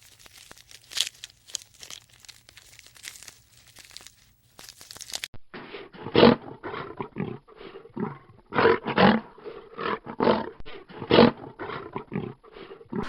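Tiger growling in a series of short, rough, irregular bursts, after about five seconds of faint crackling rustle.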